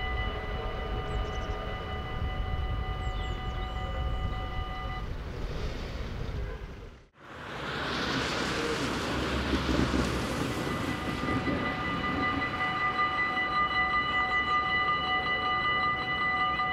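Dutch level-crossing warning bell ringing steadily while the barriers finish rising, then falling silent. After a noisy stretch the bell starts ringing again about eleven seconds in, as the red lights flash and the barriers lower: the warning that another train is coming.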